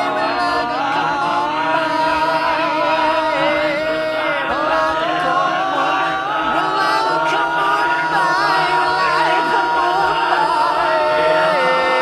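Buddhist chant of Pali verses sung in long, slowly gliding held lines over a musical backing.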